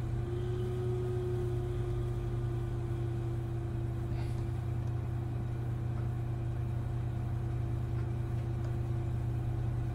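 Steady low hum with a faint held tone above it: background room noise behind the pause in speech.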